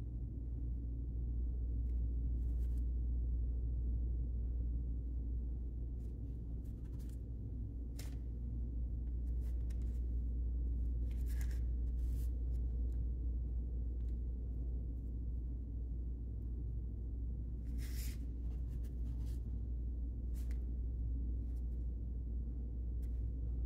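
Steady low hum of room tone, with a few faint, brief scratches of a paintbrush stroking paint onto paper scattered through it.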